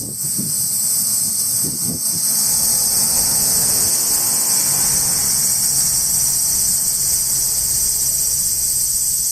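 Cicadas singing in the trees in a steady, high-pitched, unbroken chorus. A few soft low thumps sound in the first two seconds, and a low rumble lies beneath the chorus after that.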